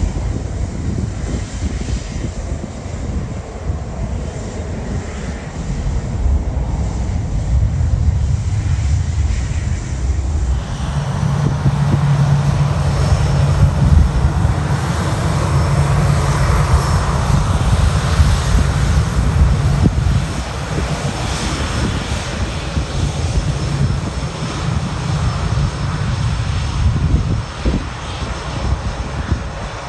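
Aircraft engines of an airplane running at the airport: a low rumble that grows louder about ten seconds in, adding a steady low hum and a faint high whine.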